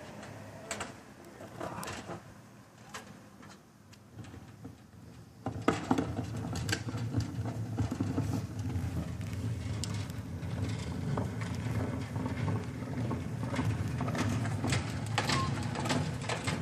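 Plastic recycling can being handled and moved, its contents clattering: scattered clicks, then about five seconds in a sudden steady low rumble with many sharp knocks and rattles on top.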